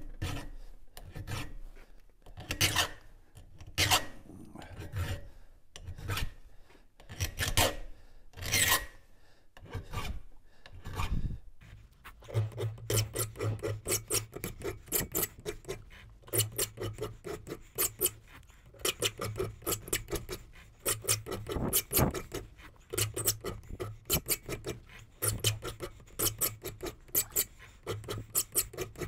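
Flat file rasping across the depth gauges (rakers) of a Husqvarna saw chain, two strokes on each raker, to lower them after the cutters were ground well back. The strokes come singly and spaced apart at first, then quicker and closer together from about twelve seconds in.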